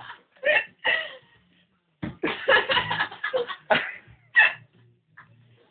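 People laughing in short bursts: two brief ones near the start, then a longer run of laughter from about two seconds in.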